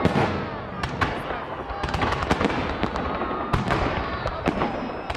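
Festive fireworks salute: shells bursting in quick succession, many sharp bangs a fraction of a second apart over a continuous background rumble.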